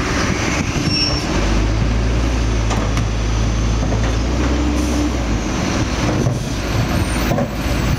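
Rear-loading garbage truck running at the curb, with a steady low engine drone from about a second and a half in until about five seconds in. A few knocks come as a wheeled bin is tipped into the hopper.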